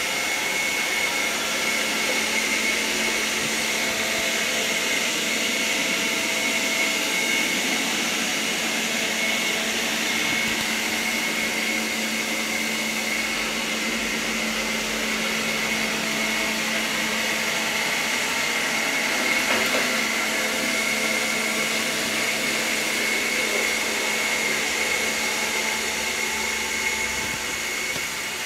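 ILIFE V5S robot vacuum running: its suction fan and brushes make a steady high whine and a low hum over a constant hiss, at an even level throughout.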